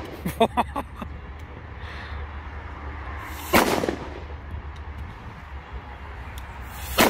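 Pirata firecrackers going off one at a time: a few small crackles just after the start, then a single sharp bang about three and a half seconds in and another near the end.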